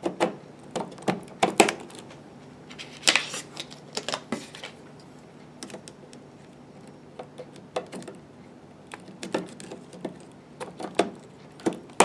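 DDR4 memory sticks being pushed into X99 motherboard DIMM slots: a string of short, sharp plastic clicks and snaps, coming irregularly, one to three at a time. The click of the slot latch snapping shut is the sign that a module is fully and correctly seated.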